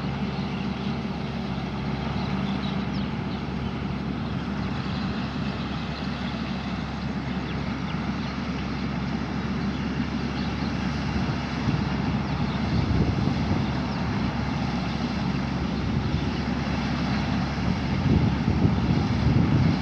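A combine harvester's Isuzu 6HK1 six-cylinder diesel engine running steadily. From about halfway through, wind buffets the microphone, growing stronger near the end.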